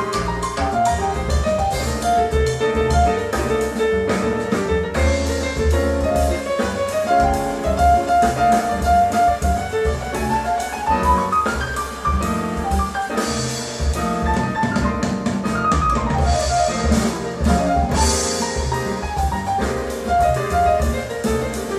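Jazz piano trio music, with piano runs over bass and drums and cymbals, played back through Triangle Borea BR03 BT powered speakers and picked up by stereo microphones in the room.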